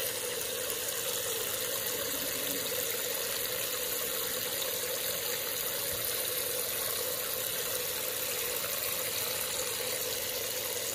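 Tap water running steadily into a plastic bucket of aquarium sand, splashing onto the cloudy, churned-up water as the sand is rinsed.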